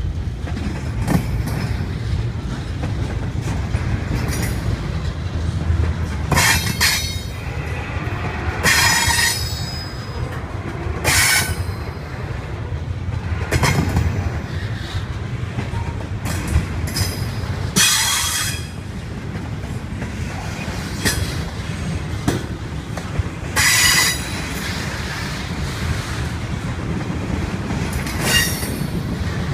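Double-stack container train of well cars rolling past: a steady low rumble of wheels on rail, broken about every few seconds by short, high-pitched squeals from the wheels.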